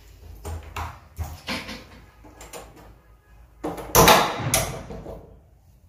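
Knocks and bumps of a door being opened. The loudest is a clatter about four seconds in, followed by a second one half a second later.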